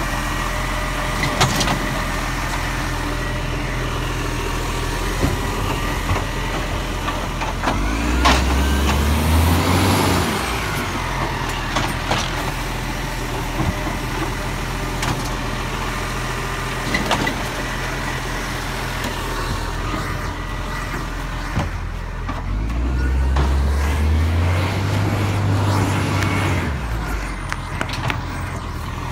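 Side-loading garbage truck running at the kerb, its diesel engine revving up twice as the hydraulic arm lifts and sets down a wheelie bin, with scattered metallic clanks from the arm and bin.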